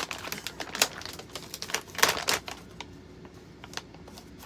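A shiny grab bag being handled and opened, its wrapping crinkling and crackling in irregular bursts, loudest about two seconds in.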